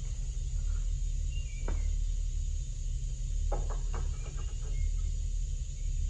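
Light metal knocks and clicks as steel parts are handled at a truck's leaf-spring axle seat: one sharp knock nearly two seconds in, then a quick run of small clicks around the middle, over a steady low hum.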